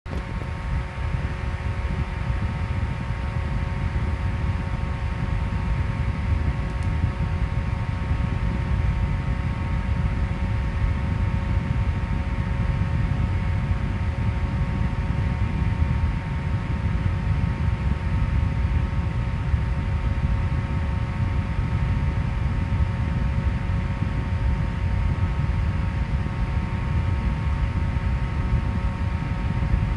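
Electric fan running at a steady speed: a constant rushing of air with a low rumble and a few steady hum tones from the motor.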